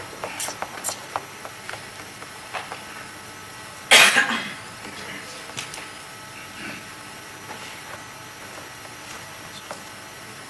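A single short cough about four seconds in, over quiet room tone with a few light clicks and rustles early on.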